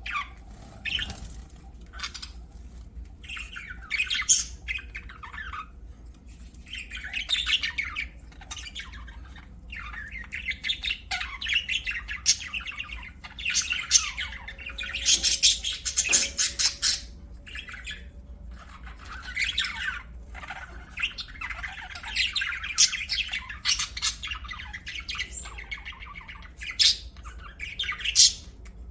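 Pet budgerigars chirping and squawking, with many short, sharp calls and chatter coming and going throughout.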